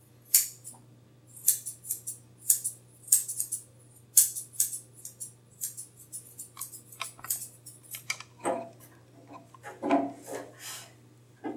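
Grooming scissors snipping the hair around a dog's foot, many short sharp snips at an uneven pace. Near the end come a few duller rubbing sounds of hands and hair.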